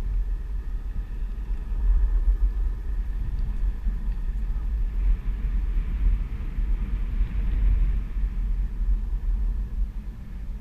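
Steady low rumble of riding a OneWheel XR+ electric board along an asphalt path: wind buffeting the microphone and the board's single wheel rolling on the pavement.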